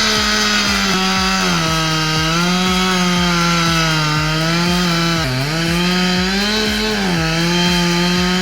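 Chainsaw running fast in a cut, its steady high engine note dipping briefly about three times as the chain bogs down in the wood.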